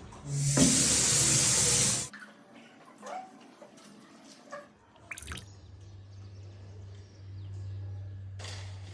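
Tap water running hard into a sink for about two seconds, then shut off. Scattered clicks and knocks follow, and a low steady hum sets in about halfway through.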